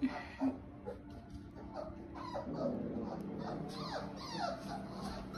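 Four-week-old shepsky (German shepherd × husky) puppies whining and whimpering: many short high cries that fall in pitch, coming more often toward the end. Two short, sharp sounds come about half a second apart at the very start.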